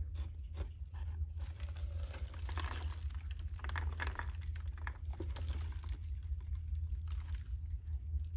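Plastic deli cup being shaken and tapped out over a plastic tub, with loose substrate and red runner roaches pattering and rustling onto cardboard egg flats in irregular bursts. A steady low hum runs underneath.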